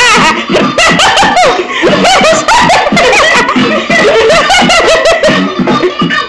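Two women laughing hard, a run of loud, overlapping laughs, with music playing underneath.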